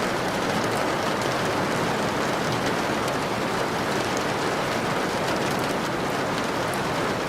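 Steady rain: an even, unbroken hiss with faint scattered drop ticks.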